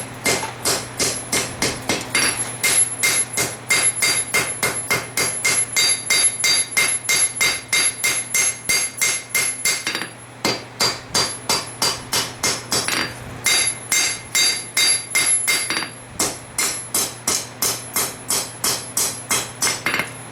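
Hand hammer striking hot steel on an anvil at about three to four blows a second, each blow ringing, drawing out and shaping the tip of a blade forged from a farrier's rasp. The hammering breaks off briefly three times.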